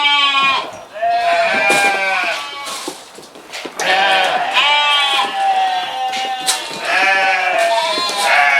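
Several sheep bleating, long wavering calls that overlap one another and come again and again, with a short lull about three seconds in.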